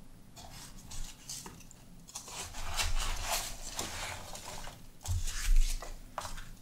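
Hands handling a cardboard box and pulling its flaps open: rustling and scraping of cardboard, with foam packing peanuts shifting inside, scattered clicks and a thump about five seconds in.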